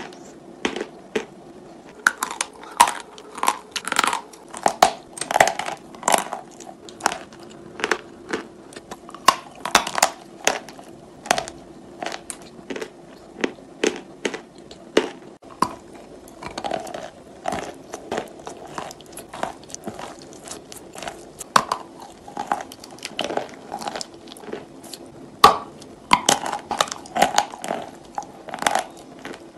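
Close-miked biting and chewing of crumbly chalk pieces coated in paste: many sharp, irregular crunches, several a second in places, over a faint steady hum.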